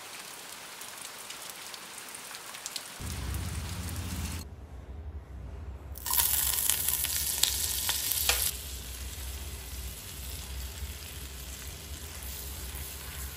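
Butter and oil sizzling in a stainless steel pan, loudest for a couple of seconds about halfway through, with a few sharp clicks of a spoon against the pan. The sizzle then settles to a softer, steady one as flour is stirred into the hot butter with a spatula, the start of a roux for white sauce. A steady low hum runs underneath from about three seconds in.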